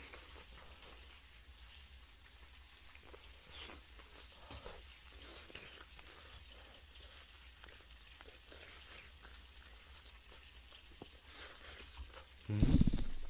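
Pork belly strips sizzling faintly on an electric grill pan, a soft steady hiss with scattered crackles. A low voice breaks in near the end.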